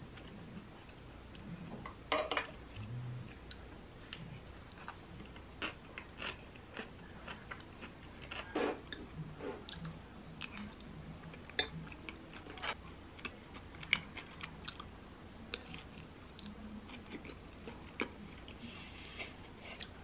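Quiet eating sounds: chewing and biting close to the microphone, with sharp clicks now and then as a metal spoon and chopsticks knock against a ceramic bowl.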